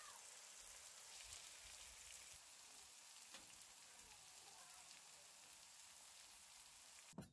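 Sausage, peppers and onions frying in a cast-iron skillet: a quiet, steady sizzle.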